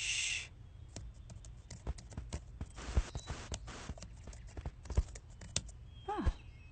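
A dog's claws clicking and tapping irregularly on a hard floor, with a short noisy burst at the start and a brief falling whine about six seconds in.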